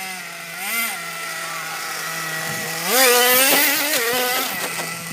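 Small two-stroke petrol engine of a remote-control car idling steadily, blipped briefly about a second in, then revved harder about three seconds in, its pitch rising and wavering for about a second and a half before dropping back to idle.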